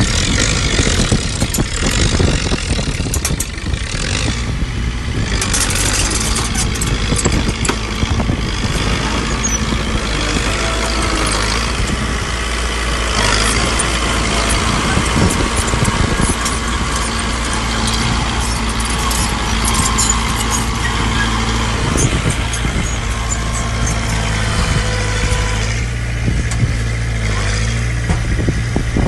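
Heavy earthmoving machinery, bulldozer and dump truck diesel engines, running steadily with a low drone, with scattered clanks and rattles throughout.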